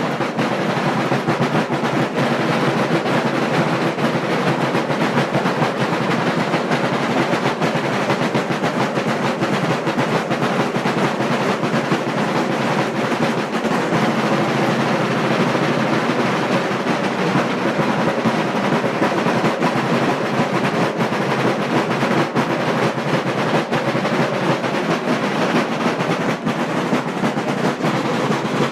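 A group of Sicilian street drummers, adults and children, beating large rope-tensioned wooden drums with sticks in a dense, continuous rolling rhythm.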